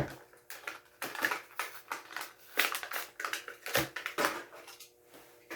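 Blister-pack packaging of a diecast toy car being torn open by hand: plastic and cardboard crackling, snapping and scraping in an irregular run of sharp clicks.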